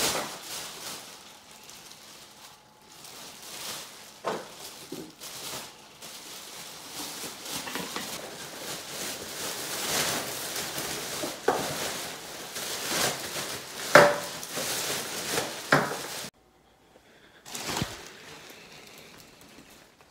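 Black plastic garbage bag rustling and crinkling as it is handled and gathered up, with irregular sharp crackles and a few knocks. The sound breaks off briefly near the end, then comes back with a couple of handling bumps.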